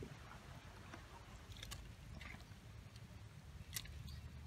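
Raw chicken pieces dropped from a tray into a pot of hot broth, making a few soft splashes and clicks over a low steady rumble; the sharpest sound comes near the end.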